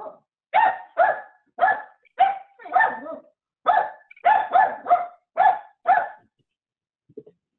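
A dog barking repeatedly, about eleven barks in quick runs that stop about six seconds in. The barking is a reaction to someone coming to the door.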